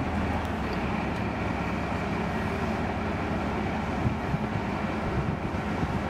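The Ultra Heavy-Lift Amphibious Connector prototype running steadily, its engine and padded tracks working as it creeps over the sand.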